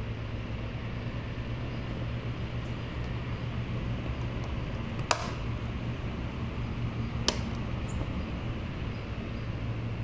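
Britânia electric fan running: a steady motor hum with the rush of air from the spinning blades. Two sharp clicks come through, about five and about seven seconds in.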